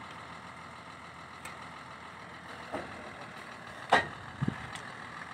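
Truck-mounted borewell drilling rig's engine running steadily, with a sharp knock about four seconds in and a few lighter clicks around it.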